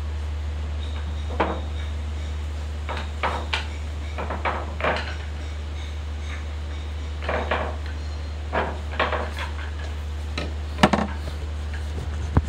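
Billiard balls clacking together and the cue tip striking the ball: a scatter of about ten sharp clicks, the loudest near the end, over a steady low hum.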